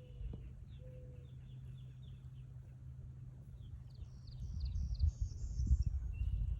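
Small birds chirping, many quick high calls one after another, over a steady low hum. A low rumble swells in the second half.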